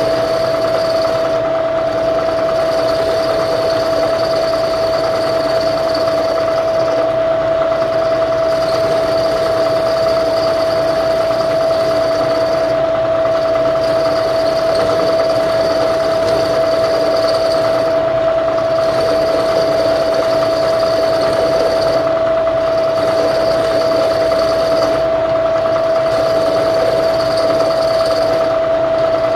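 Milling machine running steadily through a cut, with a constant high whine over a mechanical hum.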